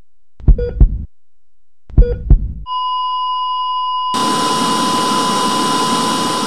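Logo sound effect: two double heartbeat thumps, then a steady high beep like a heart monitor flatlining. About four seconds in, a burst of television static hiss starts and runs on under the beep.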